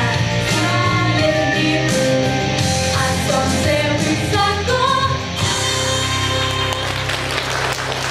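Live pop-rock band with a singer performing a song; the singing ends about five seconds in and the band holds the final chord, with applause starting near the end.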